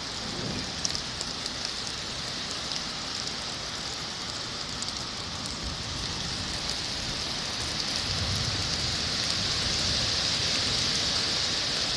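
Heavy rain pouring steadily, with a few light drop ticks, growing slightly louder in the second half.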